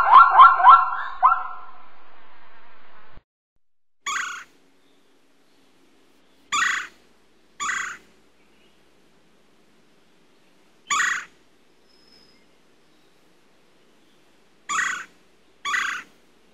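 Plains zebra's barking call, a quick run of yelps about three a second, which stops about a second and a half in. Then a great spotted woodpecker gives six sharp single 'kik' calls, a second to a few seconds apart.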